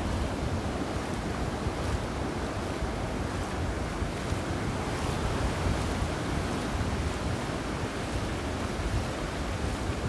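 Sea surf washing steadily on a sandy beach, with wind rumbling on the microphone.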